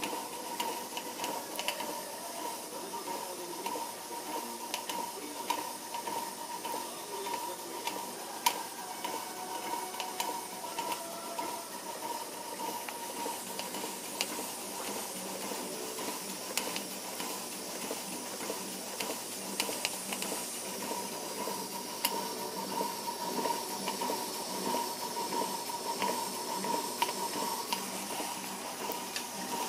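Steady hiss of live steam from the small model boiler and Stuart No. 4 steam engine, with a thin steady whistle-like tone and scattered faint ticks.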